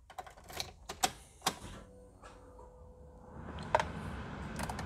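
Sharp clicks and taps as the Mazda 2's ignition is switched on at the steering column, with a faint steady whine in the middle, then a low steady hum from about three and a half seconds in as the car's electrics come on.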